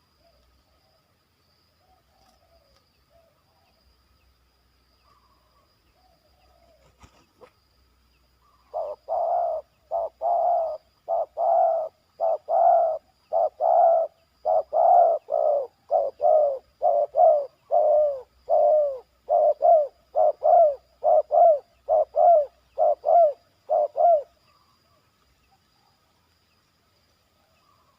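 A dove cooing: a long series of about two dozen short coos, getting slightly quicker toward the end, then stopping.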